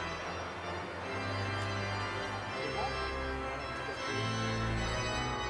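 Background music of held organ chords that change about every second and a half.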